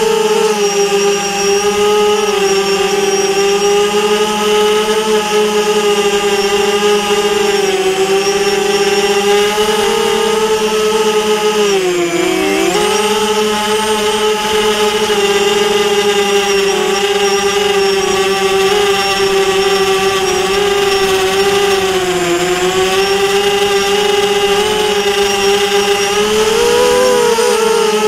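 Small multirotor drone's electric motors and propellers whining steadily, close to the onboard camera. The pitch shifts with the throttle, dipping sharply about twelve seconds in.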